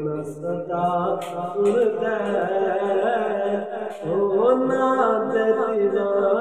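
A man singing a Punjabi devotional manqabat, drawing out long, wavering held notes without clear words.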